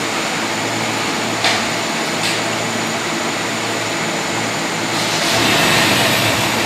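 Steady rushing background noise with two light clicks about one and a half and two seconds in; the noise grows a little louder about five seconds in.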